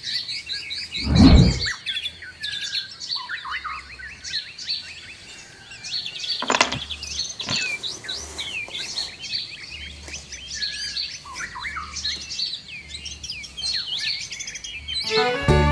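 A dense chorus of small birds chirping and twittering, with a single low thud about a second in.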